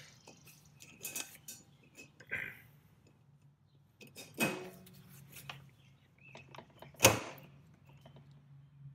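Metal tools clinking and knocking as a breaker bar and socket are worked on a lawnmower's blade bolt to break it loose, with a few scattered clicks and one sharp, loud knock about seven seconds in.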